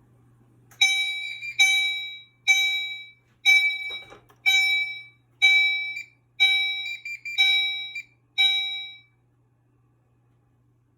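Fire alarm notification appliance sounding a chime tone: a ringing, bell-like strike about once a second, nine in all, each dying away, then stopping about nine seconds in. The system is still in alarm because the manual release pull station was left activated when it was reset.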